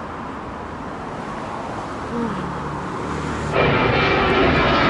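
Jet airliner passing low overhead. Its engine noise cuts in suddenly loud about three and a half seconds in, after a stretch of faint outdoor street noise.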